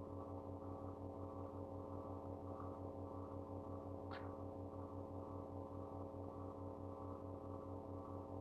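A steady low hum with several pitched overtones and a fast, even throb in its lowest part. A faint short tick about four seconds in.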